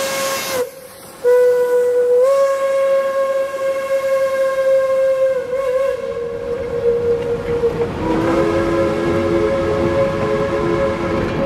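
Steam locomotive whistles blowing long as a train rolls past, first a single-note whistle that breaks off briefly about half a second in and then sounds again, then from about eight seconds a chime whistle sounding a three-note chord over the low rumble of rolling freight cars.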